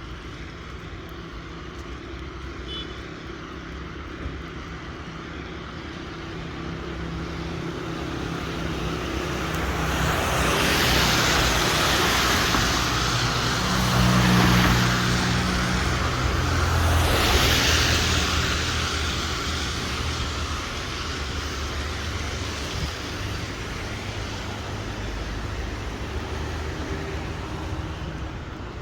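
Road traffic passing on a wet street: engine hum and tyre hiss swell to a peak about halfway through, then fade away.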